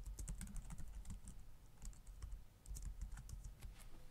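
Typing on a computer keyboard: a quick, irregular run of faint key clicks as a short terminal command is entered.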